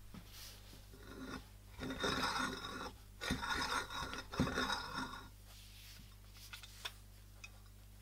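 Restored Spong & Co cast-iron hand-crank coffee grinder being turned by its crank, its grinding mechanism rasping and scraping. It runs in two stretches, the first about two seconds in and the second after a short break, stopping a little past five seconds.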